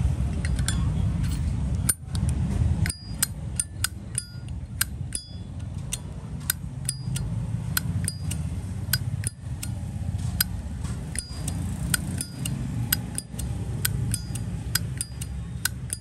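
Zippo lighter lid flicked open and snapped shut over and over: a string of sharp metallic clicks, about two or three a second, many with a short ringing ping. A steady low hum runs underneath.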